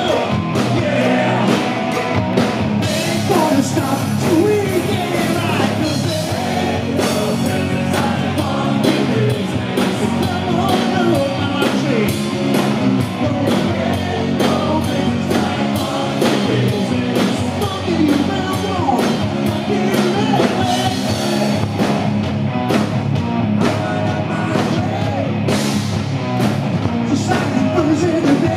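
Live rock band playing loud and steady: a male lead singer singing into a microphone over the band's guitars, bass and a regular drum beat, recorded from the audience.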